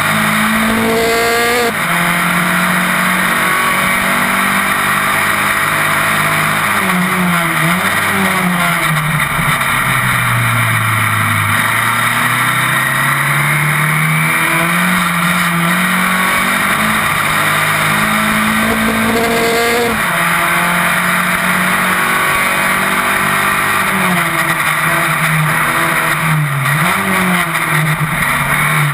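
Open-wheel single-seater race car engine heard onboard at racing speed, the revs climbing and falling with gear changes and corners, lowest about a third of the way in before climbing steadily again.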